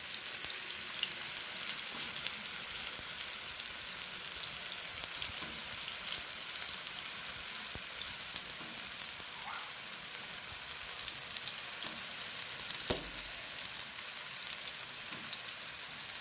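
Beef burger patty shallow-frying in oil in a non-stick pan: a steady sizzle with small spits and crackles of fat. A single soft knock about two-thirds of the way through.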